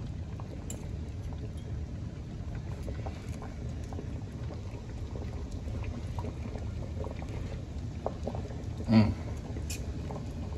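Chicken broth at a rolling boil in a large enamel stockpot: steady bubbling, with a few faint clicks and one short, louder sound about nine seconds in.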